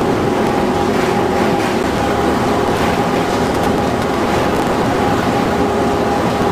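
Steady din of a brick production line's raw-material machinery running: a belt conveyor, a grinding mill and its blower fan. A constant pitched hum sits over rough, even machine noise.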